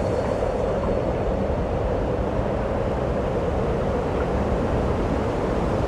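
Steady wind noise buffeting an action camera's microphone while parasailing high above the water, a low, even rush with no other sound standing out.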